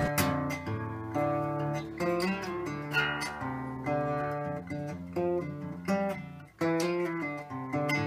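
Background music: an acoustic guitar playing plucked and strummed notes.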